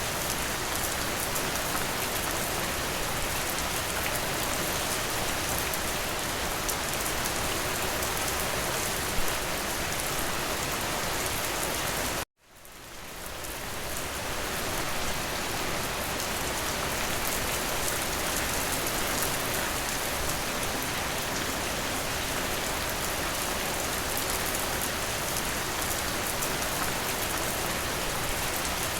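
Steady rain falling, an even hiss of drops, with one slightly louder drop about nine seconds in. About twelve seconds in the rain cuts out abruptly and swells back to full over about two seconds.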